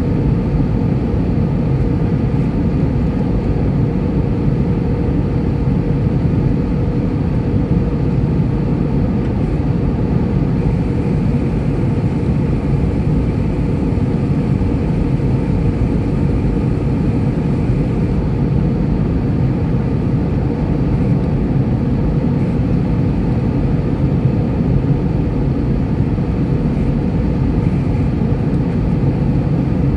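Steady cabin drone of an Airbus A320-214 on approach, heard from a seat over the wing: its CFM56-5B engines and airflow make a constant low rumble with one held hum running through it.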